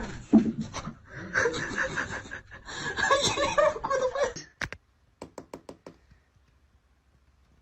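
A person laughing in short bursts, followed by a quick run of about six sharp clicks, then near silence.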